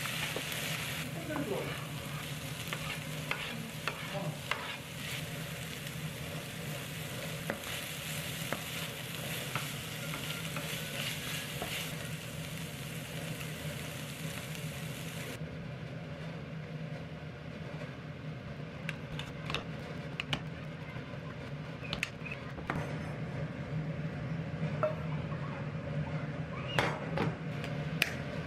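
Kimchi stir-frying in a nonstick frying pan: steady sizzling, with a wooden spatula scraping and tapping against the pan. About halfway through, the bright hiss of the sizzle cuts off suddenly, leaving quieter scrapes and a few sharp knocks near the end.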